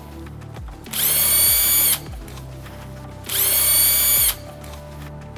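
Battery power tool run twice, about a second each time, each run spinning up quickly to a steady high whine. It is used to run out the bolts under the gearbox once the transmission oil is drained.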